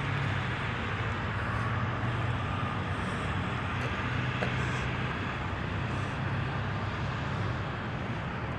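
Steady vehicle noise with a low engine hum, holding at an even level throughout.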